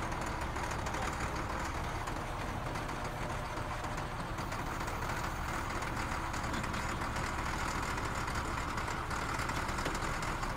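Motor grader's engine idling steadily.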